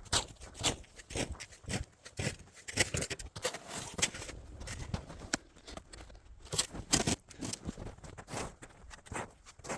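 Snow crunching and scraping in a run of irregular strokes, about two a second.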